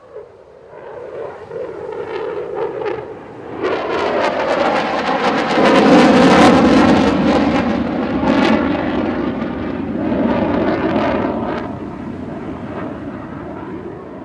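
RAF Eurofighter Typhoon's twin Eurojet EJ200 engines in afterburner as the jet flies its display. The noise swells from about a second in, is loudest in the middle with a crackling edge, then fades away toward the end.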